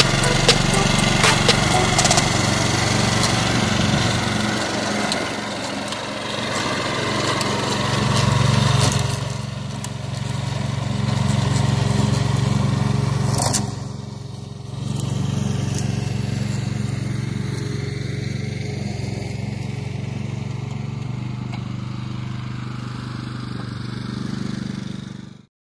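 Petrol engine of an Eliet DZC600 overseeder running steadily as the machine is pushed over turf, its blades slitting and scarifying the grass. A few sharp clicks come in the first couple of seconds, and the level dips briefly about fourteen seconds in.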